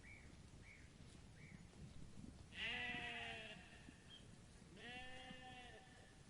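Sheep bleating twice, each bleat about a second long with a rising-then-falling pitch. Faint short high chirps sound during the first second and a half.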